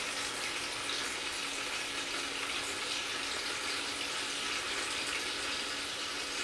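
Toilet flushing: a steady rush of water with a faint low hum under it.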